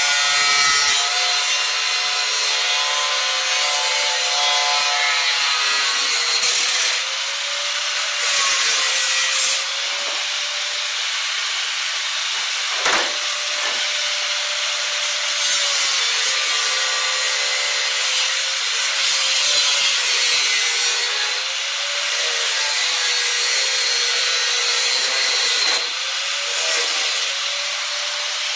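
Angle grinder running and cutting through the sheet-metal panel of a computer case, its motor whine sagging and recovering in pitch as the disc bites. A single sharp knock about halfway through.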